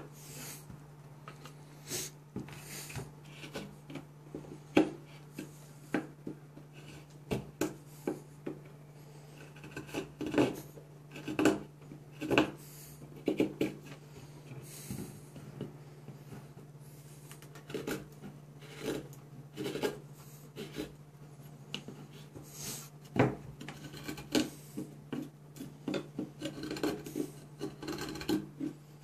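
Mora Companion carbon-steel knife with a Scandinavian grind shaving curls off a pine block: a run of irregular short scraping cuts, one or two a second, over a steady low hum. The carver says the edge has nearly gone dull and he feels resistance in the cut.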